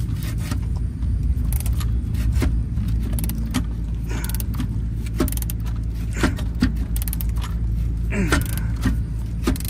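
Wrench clinking against a stiff battery terminal nut and bolt in irregular metallic clicks as it is worked loose, over a steady low hum.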